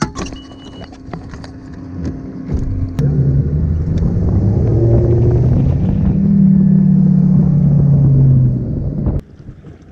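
Bass boat's outboard engine throttled up: a low rumble that jumps in about three seconds in, rises in pitch as the boat gets under way, then runs steadily at speed before cutting off abruptly near the end.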